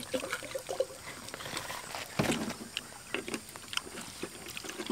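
Small clicks and rustles of people eating with their hands off banana leaves and bowls, with one dull knock about two seconds in.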